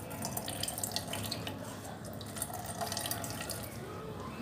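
Whey trickling and dripping into a stainless steel bowl as a muslin bundle of fresh chenna is squeezed, a steady trickle with many small splashes.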